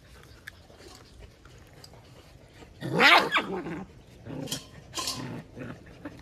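Belgian Malinois puppies barking over a raw beef rib: one loud bark with a sliding pitch about halfway through, then two shorter barks about a second later.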